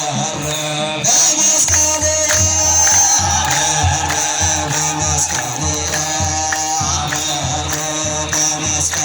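Ethiopian Orthodox clergy singing wereb, a sustained group chant, with a deep drum beating steadily from just under two seconds in.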